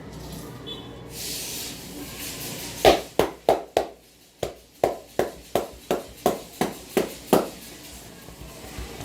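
Barber's hands slapping rhythmically on the head during an Indian head massage: about a dozen sharp pats in quick succession, roughly three a second, starting about three seconds in and stopping about a second and a half before the end.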